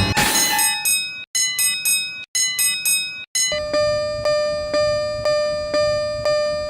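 Animated level-crossing warning sound. It opens with three short phrases of piano-like chime notes, each cut off abruptly. About halfway in, an even ding-ding alarm takes over, striking about twice a second over a held tone.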